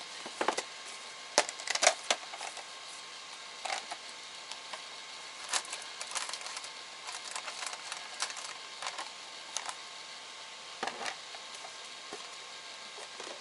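Cocoa container and scoop being handled: scattered clicks, taps and light knocks, loudest in a cluster about two seconds in.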